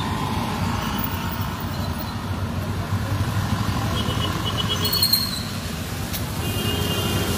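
Steady low rumble of road traffic and outdoor street ambience, with a few short high chirps about four seconds in.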